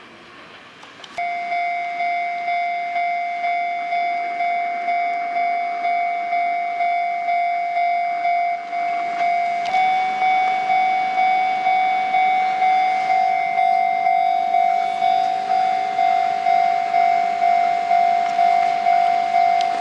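Japanese level-crossing warning bell ringing, a steady electronic ding repeating about twice a second. It starts suddenly about a second in, and its pitch steps up slightly about halfway through.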